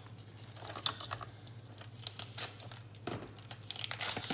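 Light crinkling and rustling with a few soft clicks and knocks as raw chicken breast is handled on a cutting board, over a steady low hum.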